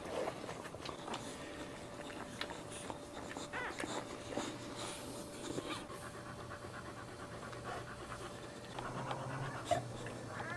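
Mother dog panting during whelping, with a couple of faint high squeaks.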